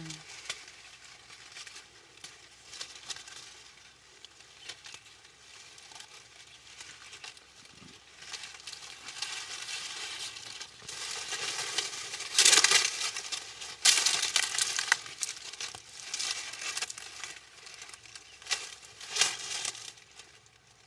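Crisp, irregular rustling and tearing of leafy amaranth greens (terere) being handled and plucked by hand, with louder bursts of rustling about twelve, fourteen and nineteen seconds in.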